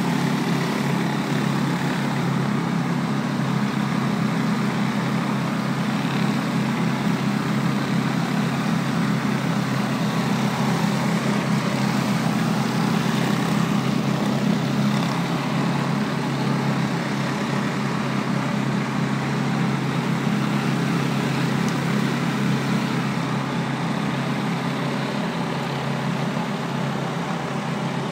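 Trailer-mounted pressure washer's engine running steadily while a rotary surface cleaner sprays high-pressure water onto brick pavers: a constant engine hum under an even hiss of spray.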